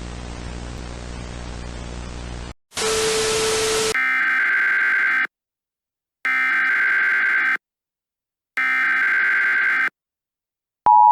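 Emergency Alert System broadcast tones: a steady hiss of static, then a short, louder burst of static with a low tone under it. Next come three bursts of SAME header data tones, each a little over a second long and about a second apart. Near the end the loud steady two-tone EAS attention signal starts.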